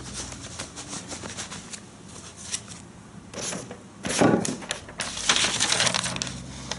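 Objects being handled on a work surface: scattered small clicks and taps, a louder knock with rustling about four seconds in, then more rustling and scraping near the end.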